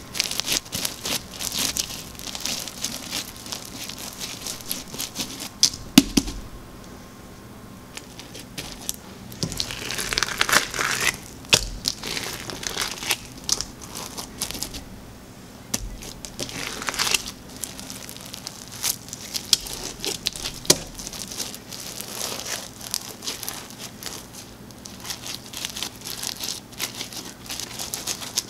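Crunchy fishbowl slime being squeezed and pressed by hand, the small filler pellets packed in it crackling and crunching in dense runs of quick pops, with a couple of brief lulls and one sharper snap.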